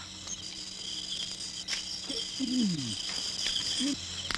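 Crickets chirping steadily in a night-time ambience. A little past two seconds in there is a short, falling voiced sound lasting about half a second.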